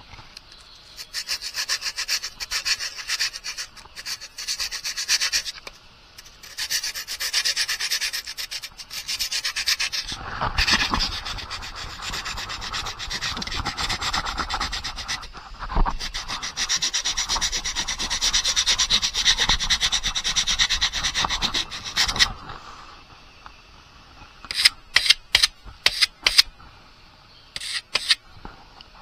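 Soldering iron tip being rubbed back and forth on sandpaper, a scratchy scraping in long runs with short pauses, to clean the tip so it will heat and take solder. Near the end the scraping gives way to a few sharp taps.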